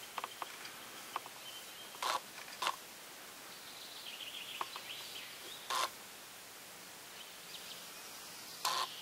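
Outdoor ambience with faint bird chirping about four to five seconds in, and three short, sharp sounds about two, two and a half, and five and a half seconds in.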